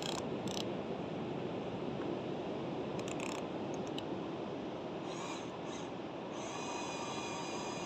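Excavator running and working, a steady mechanical engine noise with a few short metallic clicks; a steady whine joins in near the end.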